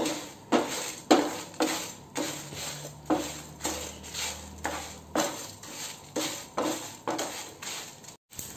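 Wooden spatula scraping and knocking against a nonstick frying pan about twice a second, stirring dried red chillies and whole spice seeds as they roast in a little oil.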